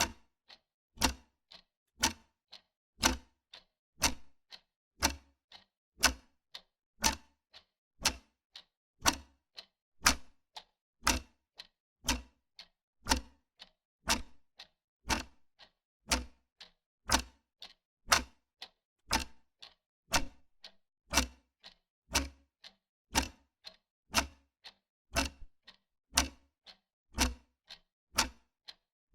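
Wall clock ticking steadily, about two even ticks a second.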